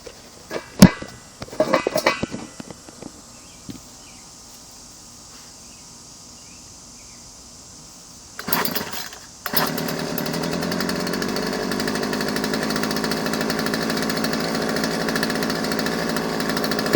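Craftsman 16-inch 30cc two-stroke chainsaw being pull-started: knocks and a short starter-cord pull about a second in, then a second pull about eight seconds in, on which the engine catches and runs steadily.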